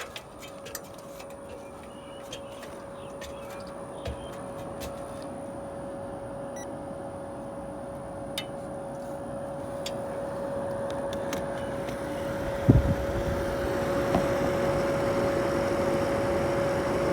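Air rushing out of a clothes dryer's exterior exhaust vent, growing steadily louder, over a steady hum, with a sharp knock about two-thirds of the way in. The vent has just been cleared of a bird's nest and lint, so the dryer exhaust is flowing strongly again.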